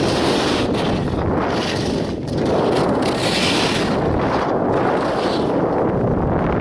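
Wind rushing over the camera's microphone on a downhill ski run, with the hiss of skis carving the snow on each turn, about every two seconds.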